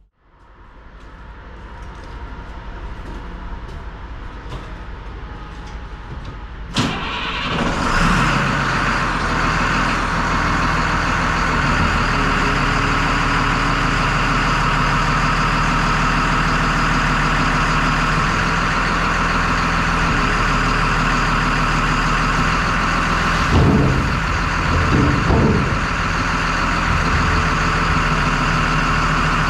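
Plow truck running steadily; about seven seconds in there is a click and the sound steps up louder and stays steady, with a couple of brief swells near the end.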